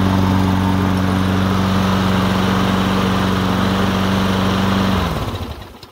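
A Toro Recycler mower's single-cylinder Briggs & Stratton engine running steadily at an even speed. About five seconds in it is cut off and winds down, its pitch dropping as the sound fades away.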